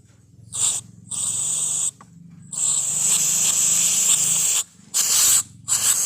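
Diesel injector nozzle on a hand-pumped pop tester spraying fuel in five hissing bursts, the longest about two seconds. The mechanic finds the nozzle's spray hole worn oversized.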